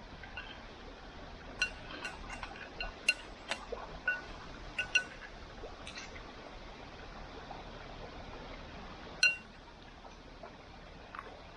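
Metal clinking: a run of short, ringing clinks of a utensil against cookware, with one louder clink later on.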